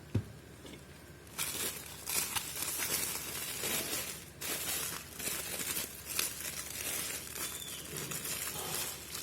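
Shipping package being torn open by hand: its packaging crinkles and tears in a busy run of rustles and crackles that starts about a second and a half in.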